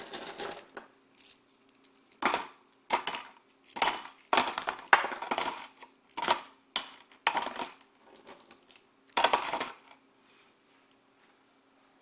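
Metal screws and bolts dropped a few at a time into a clear plastic hopper on a scale platform, clattering in about a dozen quick rattling bursts that stop about ten seconds in.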